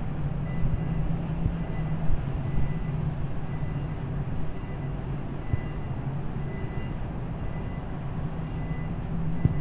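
Steady low drone of a vessel's engines and machinery, with a faint steady whine above it and a constant rush of wind and rough sea.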